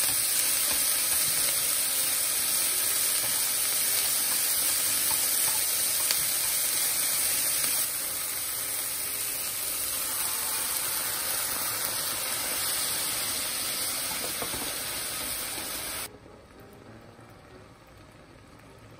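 Chicken and sliced onion sizzling in a hot frying pan, stirred with chopsticks. Partway through, milk is poured in and the sizzle eases. Near the end the sizzle cuts off suddenly, leaving a much quieter background.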